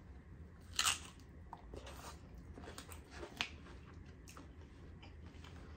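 A person biting and chewing a crisp tostada shell, with scattered crunches, the loudest about a second in.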